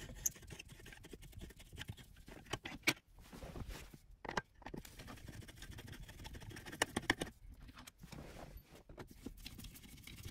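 Screwdriver backing small Phillips screws out of an aluminium console plate: faint scattered clicks, ticks and scrapes of the tip in the screw heads and against the metal, with a few sharper ticks.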